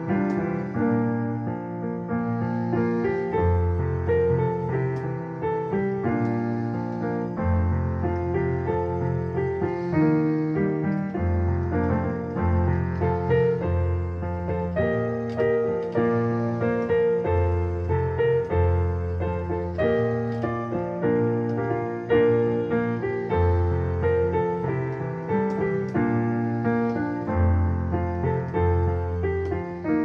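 Digital piano playing a worship song instrumentally: steady two-handed chordal accompaniment over held bass notes, at an even moderate volume.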